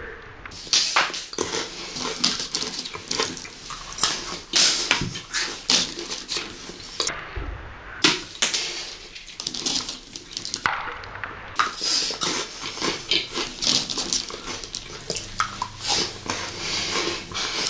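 Close-miked crunching and chewing of Maltesers, malted milk chocolate balls with a crisp honeycomb centre, heard as a dense run of short crunches.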